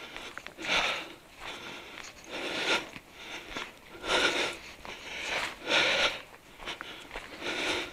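Heavy breathing of a person on the move, a hard, noisy breath about every second or so.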